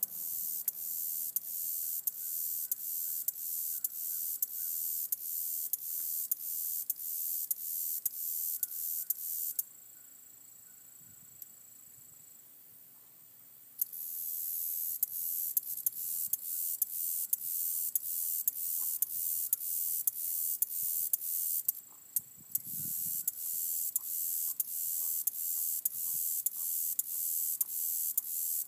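High-pitched insect buzzing that pulses about twice a second, each pulse swelling and then cutting off. It falls silent for about four seconds near the middle and again briefly later.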